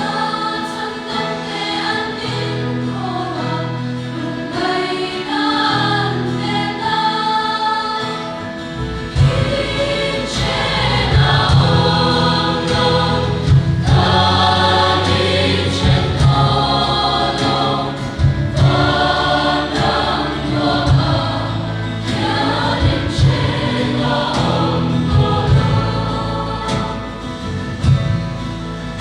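A choir singing a slow gospel-style song with accompaniment. About nine seconds in, a fuller backing with bass and a beat comes in under the voices.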